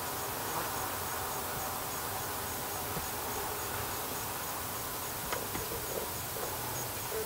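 Steady insect chorus of the forest: a high, hiss-like drone with a faint, regularly pulsing note above it.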